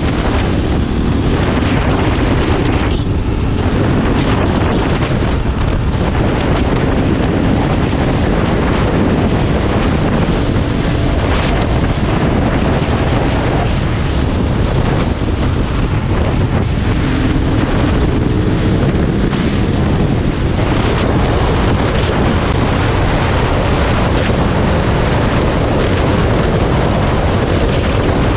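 Heavy wind buffeting the microphone on a moving KTM 500 EXC dirt bike, with its single-cylinder four-stroke engine faintly heard under the wind, rising in pitch as it pulls, most clearly around two-thirds of the way in.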